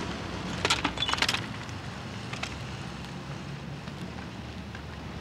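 A bicycle rattling on rough ground, with a short burst of metallic jingling clicks about a second in, over a steady low drone.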